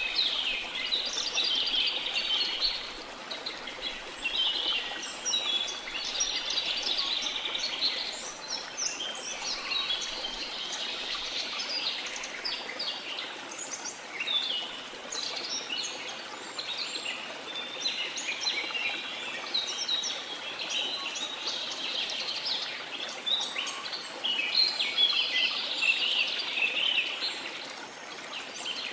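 Many birds chirping and trilling at once, a dense tropical-forest chorus, over the steady rush of a waterfall.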